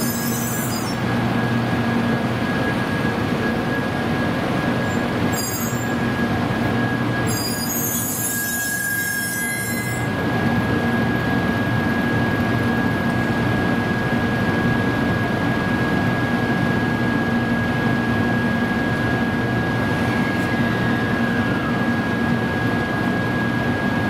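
Class 923 Doctor Yellow shinkansen train rolling slowly over the rails, wheels squealing with a steady high tone over a continuous running rumble. Short bursts of higher screeching come about five and eight seconds in.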